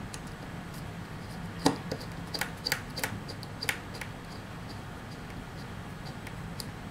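A handful of small, sharp clicks and taps from tiny screws and a screwdriver being handled, clustered between about one and a half and four seconds in, the first the loudest, over a steady low hum.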